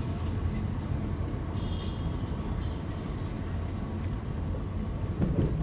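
Car driving slowly through city traffic, heard from inside the cabin: a steady low drone of engine and road noise.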